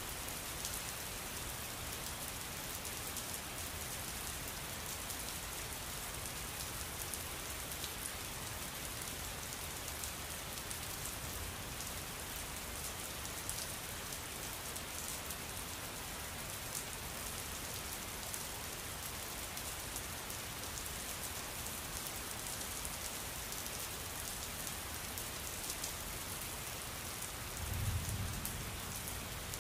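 Steady rain falling, with a dense patter of drops and a brief low rumble near the end.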